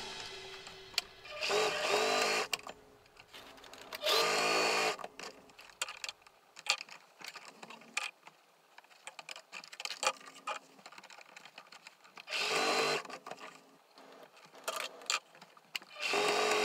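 Electric home sewing machine stitching through a heavy drop cloth in four short runs of about a second each, the motor speeding up at the start of each run. Small clicks and fabric handling come between the runs.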